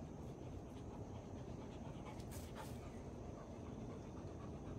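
A dog panting over a steady low rumble, with two short sharp sounds a little over two seconds in.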